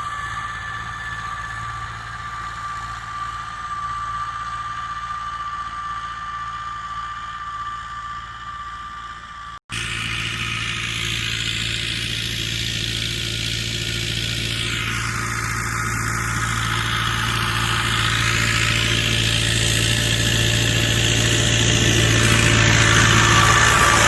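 YUMZ-8040 tractor's diesel engine running steadily while ploughing, with a steady whine over the engine note. The sound cuts out for an instant about ten seconds in, comes back louder, and grows louder toward the end.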